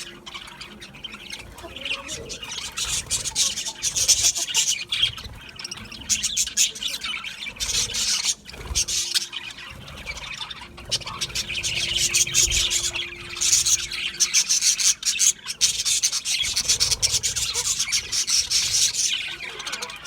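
Budgerigars chirping and chattering in a dense, continuous run of rapid high notes, with a few short lulls.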